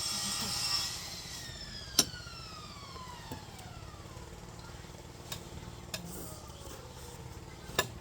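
A whine with overtones sliding slowly and steadily down in pitch over about four seconds, starting about a second in, with several sharp clinks, the loudest about two seconds in.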